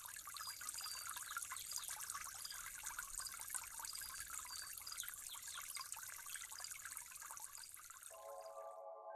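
Water ambience: a steady hiss crowded with tiny ticks. Near the end, soft synth chords come in and the water sound cuts off.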